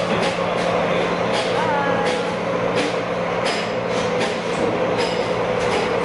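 Steady mechanical rumble and hum, broken by irregular sharp clacks.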